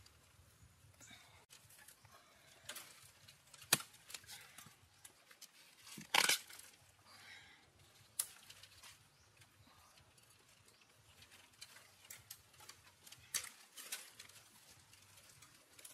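Sparse clicks, taps and knocks, with one louder, brief scraping rustle about six seconds in: the handling noises of food preparation.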